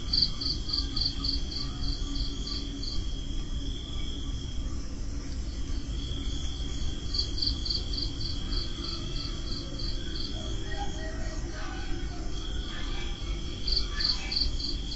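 Crickets chirping at night: one in runs of about four high chirps a second, another in a long steady high trill that breaks off and starts again, over a low steady rumble.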